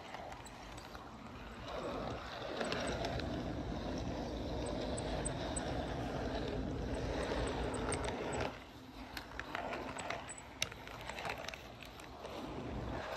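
HO-scale model train rolling along the track, heard from a small camera riding on a car: a steady rumble with light clicks from the wheels on the rails. It grows louder about two seconds in, then drops off about eight and a half seconds in, with a sharp click shortly after.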